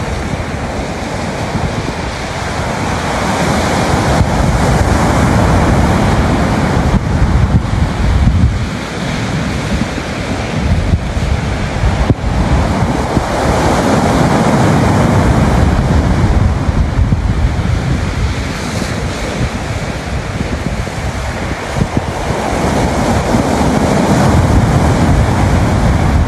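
Sea waves breaking and washing up a shingle beach, the surf swelling and easing in slow surges every several seconds, with strong wind buffeting the microphone.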